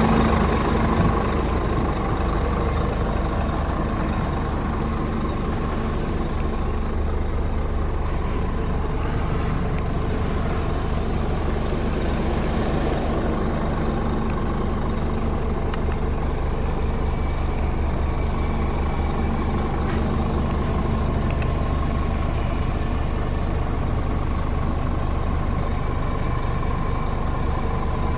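Scania R 490's 13-litre straight-six diesel idling steadily, heard from inside the cab; a little louder for the first second or two, then even.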